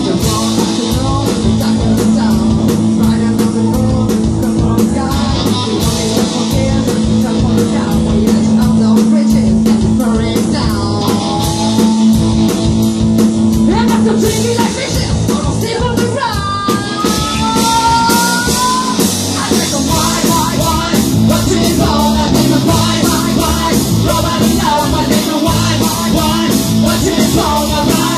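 Live rock band playing: distorted electric guitars, bass and a drum kit keeping a steady beat, with a woman singing lead into a microphone.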